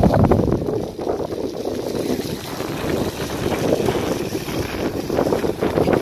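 Strong wind buffeting the microphone: a steady, gusty rumble.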